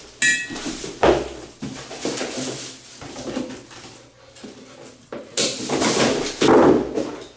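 White sheathed electrical cable being pulled and handled, scraping and rustling against itself and the cardboard boxes in several bursts, with a brief squeak at the start.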